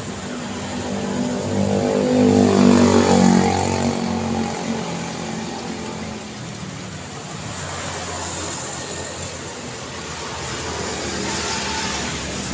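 Road traffic going by. One vehicle passes close about two to three seconds in, its engine note dropping in pitch as it goes past. A quieter swell of passing traffic comes near the end.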